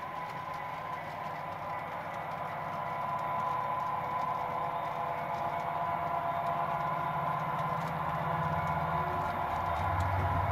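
Model diesel locomotive's DCC sound decoder playing a diesel engine throbbing steadily, getting louder as the locomotives approach and loudest near the end. A steady high hum runs underneath.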